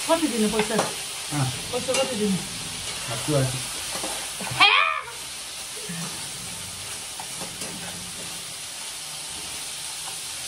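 Food frying in a pan while it is stirred, a steady sizzle. Voices over the first half, with a loud high-pitched exclamation about halfway through.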